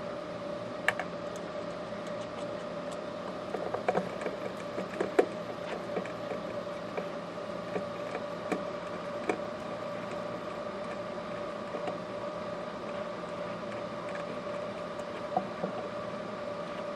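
Scattered light clicks and taps of a Phillips screwdriver and hands working a screw back into the plastic housing of an OASE Pondovac 4 pond vacuum, over a steady hum with a constant tone.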